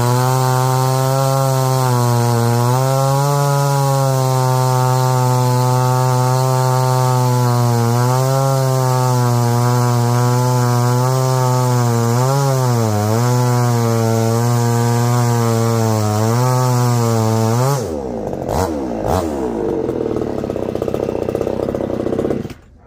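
Supmix chainsaw with a 48 mm big-bore cylinder kit (about 61.5 cc) running at full throttle while cutting through a log, its pitch wavering as the load changes. About 18 seconds in, the pitch drops as it comes off the throttle and runs rough at low speed, then it stops abruptly near the end.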